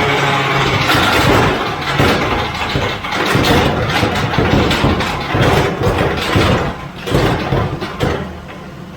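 A car engine running loudly and unevenly, easing off somewhat near the end.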